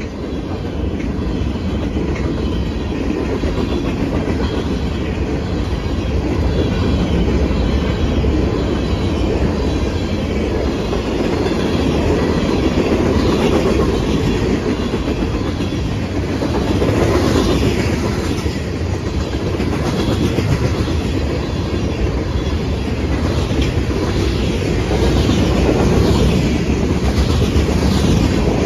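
Freight cars of a passing CSX train rolling by close up: a steady rumble of steel wheels on the rails with a rhythmic clickety-clack over the rail joints. Short high wheel squeals come through around the middle and again near the end.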